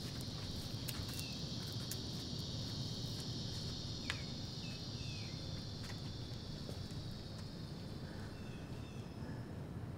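A steady, high-pitched insect drone that fades away near the end, over a low, steady outdoor background noise, with a few faint short chirps.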